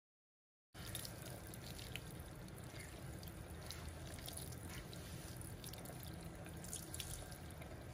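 Water from a handheld sink sprayer running over a scalp and splashing into a washbasin during a final rinse, steady with small scattered drips and spatters. It starts suddenly just under a second in, after complete silence.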